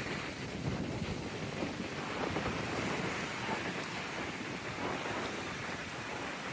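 Wind-driven waves breaking and washing ashore, a steady rushing noise, with gusts of wind rumbling on the microphone.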